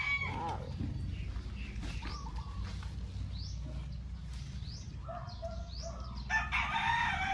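Rooster crowing, loudest near the end, with small birds chirping in short rising notes about once a second.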